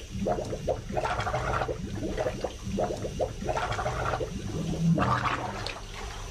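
A woman's muffled moans and strained breaths through a tape gag, coming in quick short bursts, with one longer, lower moan about five seconds in.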